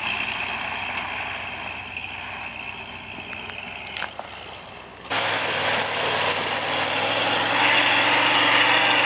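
Off-road buggy's engine running hard during a burnout, its tyres spinning in loose dirt. About five seconds in the sound jumps abruptly louder and stays loud.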